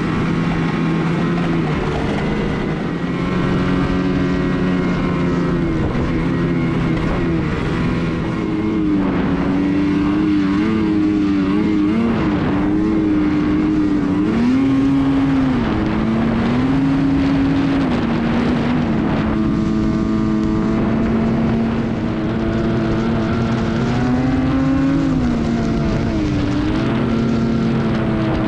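Snowmobile engine running under way, its pitch rising and falling again and again as the throttle changes.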